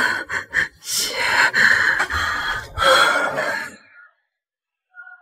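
A woman gasping and crying out in a string of breathy, strained outbursts lasting about four seconds.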